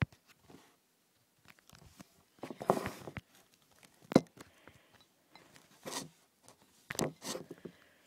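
Handling noise from the recording camera being moved over a desk of drawing paper: a sharp click at the start, then several short rustles and knocks at uneven intervals.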